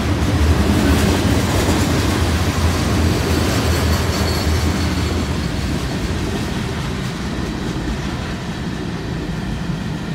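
CSX freight train's cars rolling past at speed: a steady rumble and clatter of steel wheels on the rails, easing somewhat in the second half.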